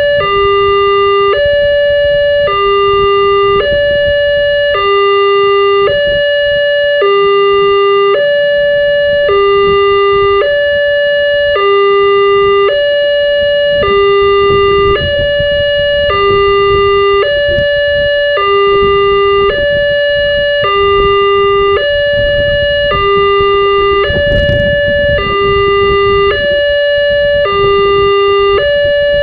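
Wantech railway level-crossing warning alarm sounding its electronic two-tone signal: a higher and a lower tone alternate, each held for about three-quarters of a second, repeating steadily over a low background rumble.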